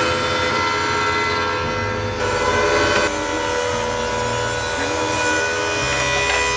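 Stationary thickness planer running, its cutterhead planing a wooden board fed through it: a loud, steady machine noise.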